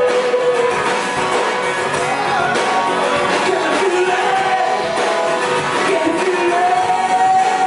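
Live rock band playing, with a singer holding long sung notes that slide between pitches over electric guitar and band accompaniment.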